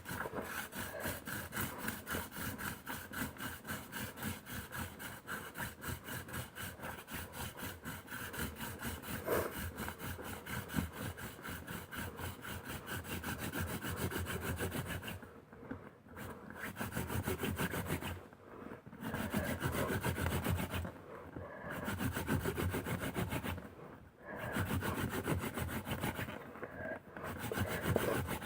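Hand-drill friction fire: a cattail spindle is spun back and forth between the palms in a Western red cedar hearth board. Its tip grinds in the hole with a fast, even rubbing rhythm to build up a smouldering ember. In the second half the rubbing breaks off for a moment every few seconds, then starts again.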